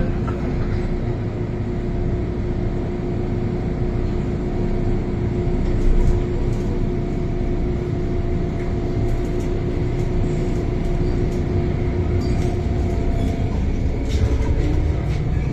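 Interior of an MTR M-Train electric metro car standing with its doors shut, a steady hum of the train's onboard equipment, then pulling away: a few light clicks and, near the end, a traction motor tone rising as it gathers speed.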